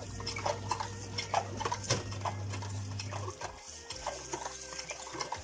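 Washing machine motor humming steadily while the tub turns, with scattered clicks and clatter. The hum stops a little past halfway and starts again at the end, as the wash motor pauses and restarts.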